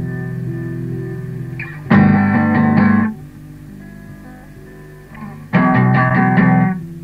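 Lo-fi home cassette recording of a guitar: held notes ringing out, broken by two loud strummed chords about a second long each, one about two seconds in and one near the end.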